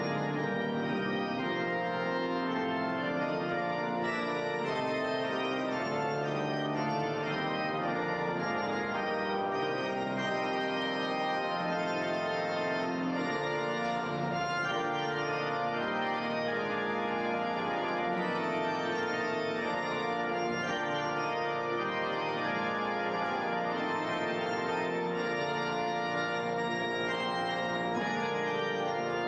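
Organ music: full, held chords that move on every second or so, playing steadily throughout.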